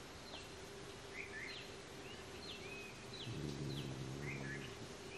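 Birds chirping outdoors: a string of short, high calls, each a quick downward sweep, repeating about every half second. About three seconds in, a low hum joins for a second and a half.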